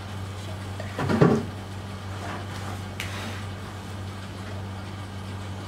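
Hairdressing scissors cutting a child's front hair: a single sharp snip about three seconds in, with a brief bump about a second in, over a steady low hum.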